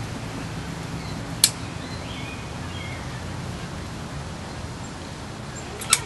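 Caulking gun being worked along a wooden frame: a sharp click about one and a half seconds in and two more near the end, over a steady low hum with a few faint bird chirps.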